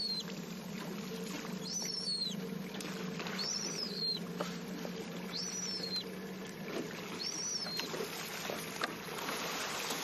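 Water moving and lapping around a small boat with a steady low hum, and a short high squeak, rising then falling in pitch, repeated four times about every two seconds.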